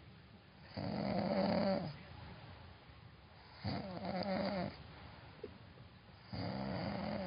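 A person snoring: three loud, pitched snores about a second long each, repeating every two and a half to three seconds.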